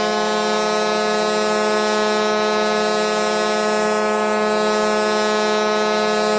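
The Phoenix Coyotes' 2007 NHL goal horn blowing one long, steady, deep blast rich in overtones.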